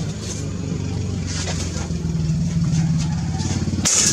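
A single sharp shot from a PCP air rifle near the end, the pellet kicking up dust from the stone wall by the metal spinner targets. A steady low hum runs underneath.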